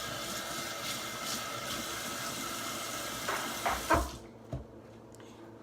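Water running from a faucet into a sink, turned off about four seconds in, with a few clunks as the tap is shut and things are set down.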